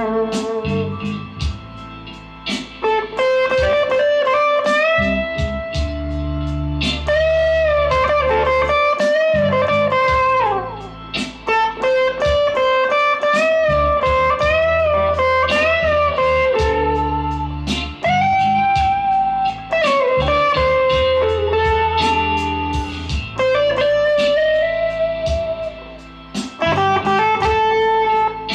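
Fender Player Stratocaster HSS Plus Top electric guitar playing a lead melody, with string bends and vibrato on held notes.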